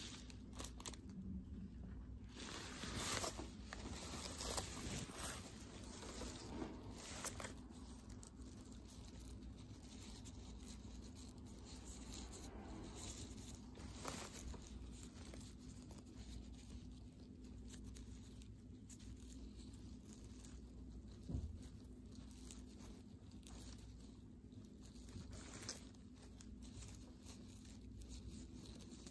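Faint rustling and crinkling of satin ribbon and tulle being handled and adjusted by fingers, with scattered soft clicks that come more often in the first several seconds, over a low steady hum.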